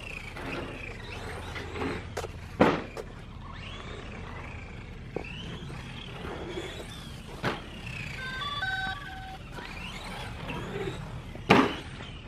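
Electric motor of a radio-controlled car whining up and down as it is driven around, over a steady low hum. A few sharp knocks break in, the loudest near the end, and a short run of electronic beeps sounds a little past two-thirds of the way through.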